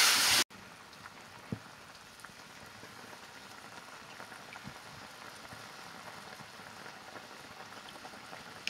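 Food frying with a loud hiss in an iron wok over a wood fire, cut off suddenly about half a second in. After that, a faint steady simmer of liquid curry in the wok, with a few small pops.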